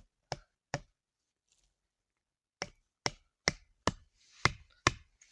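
A run of sharp knocks: three in the first second, then after a pause six more at about two a second, the later ones loudest.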